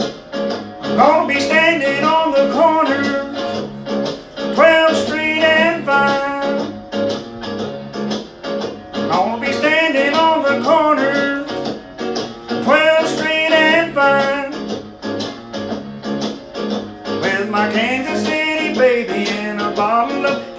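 Singing with guitar accompaniment: sung lines come in phrases every few seconds, with the guitar playing on between them.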